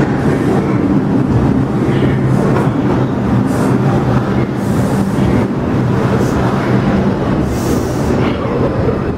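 New York City subway train pulling into the station alongside the platform: a loud, steady rumble of wheels on rails with a low hum, and a few short bursts of hiss.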